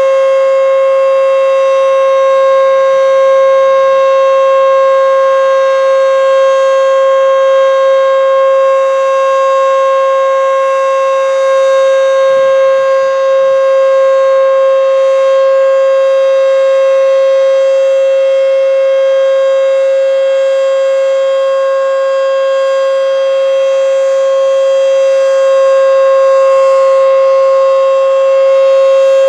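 Federal Signal Model 5 outdoor warning siren sounding a loud, steady wail that holds one pitch throughout.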